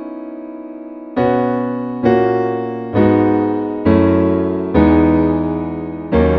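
Roland Verselab MV-1 playing a piano-type keyboard sound: six chords struck about a second apart, each left to ring and fade before the next.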